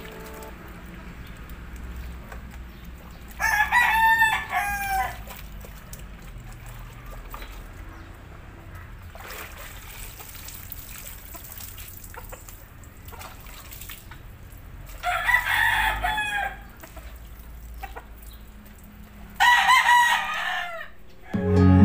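Rooster crowing three times, each crow lasting about a second and a half, with long gaps between them.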